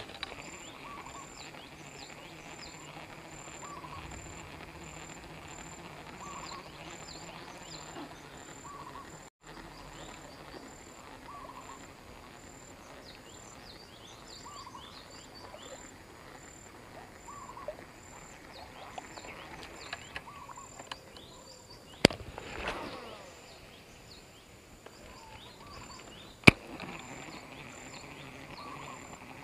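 Insects and birds calling at the edge of a plantation canal, with a high insect call pulsing about twice a second and scattered short bird chirps. About two-thirds of the way through comes a sharp snap and a whir falling in pitch, the baitcasting reel's spool paying out line on a cast, and a few seconds later a single sharp click.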